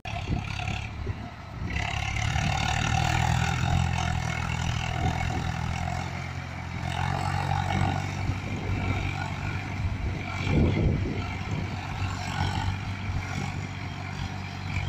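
Swaraj 744 tractor's diesel engine running steadily under heavy load as it pulls a trailer piled high with sugarcane. The engine note swells briefly a little past ten seconds in.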